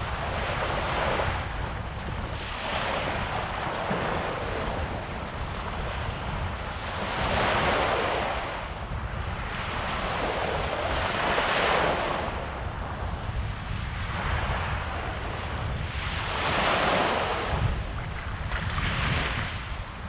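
Small waves breaking and washing up on a sandy beach, the surf swelling and fading every few seconds, over a steady low rumble of wind on the microphone.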